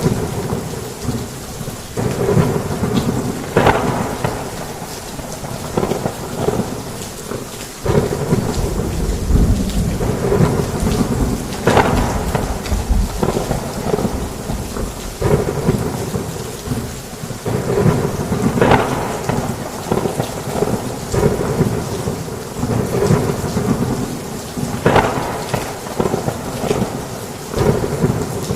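Heavy rain falling on a roof in a steady hiss, with rolls of thunder swelling and fading several times; one rumble sets in sharply about eight seconds in.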